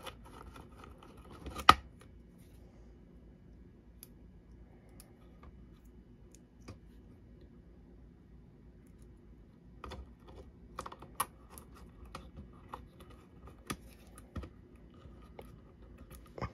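Light clicks and taps of a precision screwdriver and fingers handling tiny screws and a small voltmeter display module on a circuit board. One sharp click comes about two seconds in, then it is mostly quiet, with a run of scattered light clicks over the last several seconds.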